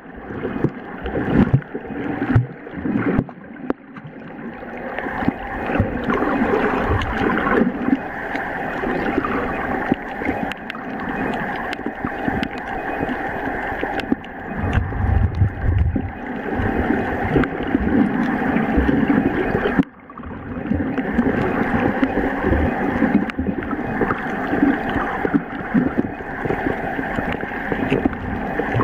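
Underwater sound through a waterproof camera's microphone: a continuous muffled rush and gurgle of water with scattered clicks, over a steady hum.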